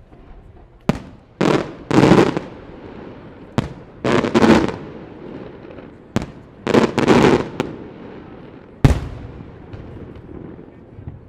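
Aerial fireworks exploding: a series of sharp bangs, some single and some packed into longer rolling bursts, each dying away over about a second. The last bang comes about nine seconds in, and it is quieter after it.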